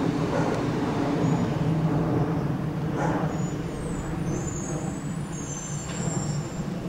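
Refuse truck engine running steadily as the truck moves slowly along the street, with a short hiss about three seconds in and faint high squeaks a little later.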